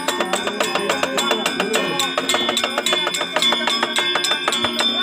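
Balinese gender wayang metallophones playing fast, ringing figuration, with a voice singing over it in the first couple of seconds.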